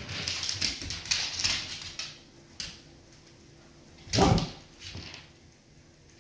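Golden retriever moving on a hardwood floor, its body and claws scuffling as it gets up and settles again. One louder, sharper sound comes about four seconds in.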